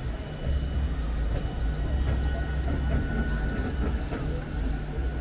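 Modern electric light-rail tram, an Alstom Citadis, passing close by at low speed. It makes a steady low rumble with a faint steady electric whine over it.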